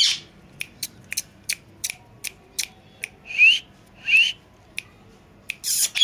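Rose-ringed parakeet giving two short rising squawky calls, then a louder harsh squawk near the end, among a series of sharp clicks at about three a second.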